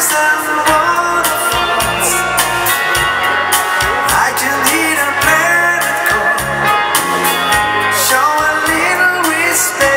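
Live dance band playing a foxtrot through a PA, with electric guitars, bass, drums and keyboards and a steady dance beat.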